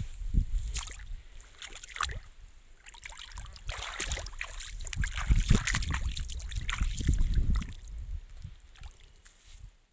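Footsteps on sand with wind buffeting the microphone, with a denser crunching stretch in the middle few seconds.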